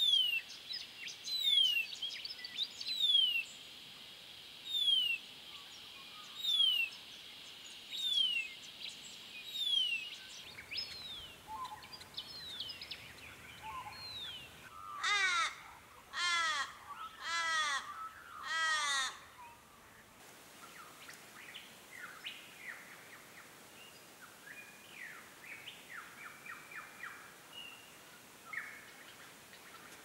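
A cuckoo repeats a clear, falling whistled note about every second and a half. After a cut, an Australian raven gives four loud, drawn-out, wailing caws, each falling away at the end. Then faint small-bird chirping follows.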